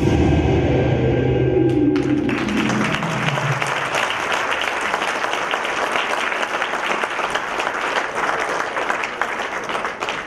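Closing music holds a final chord that fades away over the first few seconds. About two seconds in, an audience breaks into applause and keeps clapping steadily.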